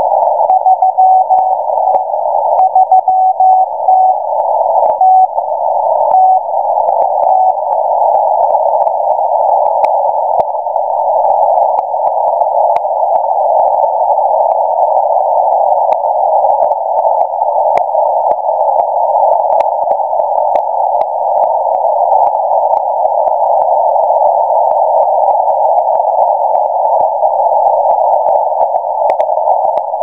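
Russian M01 numbers station's Morse code heard through a shortwave receiver in CW mode: a single-pitch beep keyed in dots and dashes for about the first seven seconds, then it drops out. Narrow-filtered static hiss with scattered crackles continues throughout.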